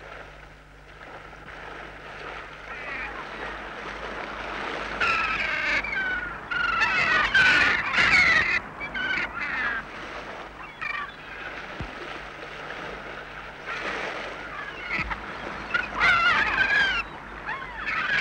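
Gulls calling: harsh, repeated cries in two bouts, the first about five seconds in and the second near the end, over a steady hiss of waterside background.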